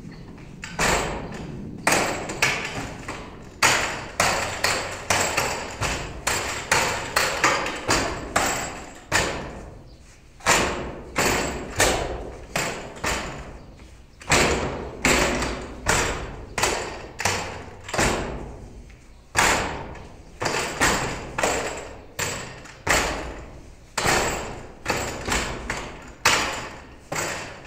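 Hands and forearms striking the wooden arms and trunk of a Wing Tsun wooden dummy (mook yan jong): sharp wooden knocks in quick, irregular flurries of several a second, with short pauses between sequences.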